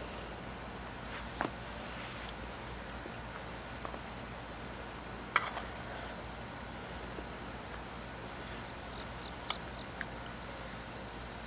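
Steady high-pitched chirring of crickets and other insects, with a few light clicks scattered through it.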